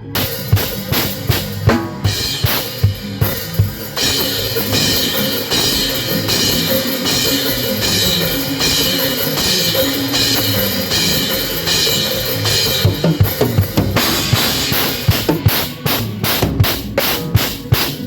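Live gospel band playing, led by a loud drum kit with kick and snare over keyboards and guitar. For much of the middle the cymbals ring in a continuous wash, and near the end the drums break into a quick run of separate hits.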